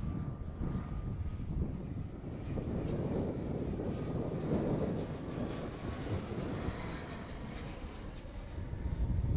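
ATR 72-500's twin Pratt & Whitney PW127 turboprops passing low overhead on landing approach: a steady engine and propeller drone that swells to its loudest about halfway through. A faint high whine slides slightly lower in pitch as the aircraft goes by.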